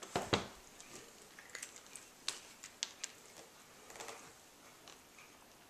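Domestic cat crunching dry treats: a string of irregular sharp clicks, with a louder knock at the very start.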